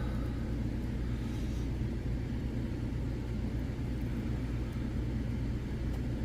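Steady low mechanical hum, like a motor or fan running, with a few faint light clicks.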